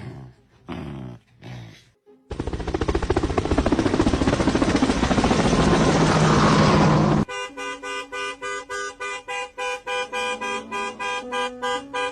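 A few short whining calls, then a loud harsh noise lasting about five seconds that cuts off suddenly, followed by bouncy rhythmic music.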